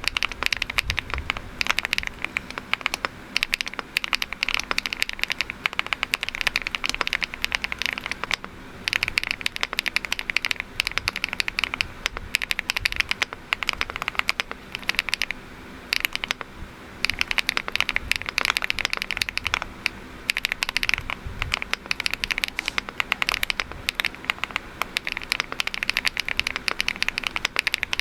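Fast, continuous typing on a Rainy 75 mechanical keyboard with a PP plate, first on HMX Windlight switches and, from about eight seconds in, on HMX Xinhai switches: dense keystroke clacks, with brief pauses where the typing stops.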